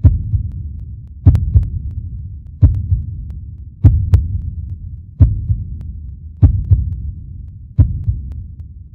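Heartbeat sound effect: deep, slow thumps, mostly in lub-dub pairs, repeating about every 1.3 seconds, each with a sharp click at its start.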